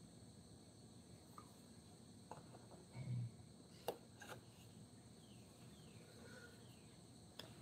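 Near silence: a faint, steady high-pitched insect chorus, with a few light clicks and a short low thump about three seconds in.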